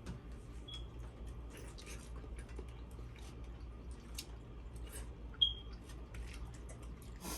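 Close-miked eating sounds from a seafood boil: chewing, lip smacks and wet squishing of sauce-covered seafood, with many small clicks. A brief high squeak about five seconds in is the loudest sound.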